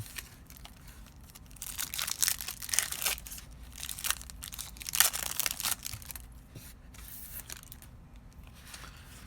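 Crinkling and tearing of a plastic-foil trading-card booster pack wrapper, in irregular bursts that are loudest in the first half, then quieter handling.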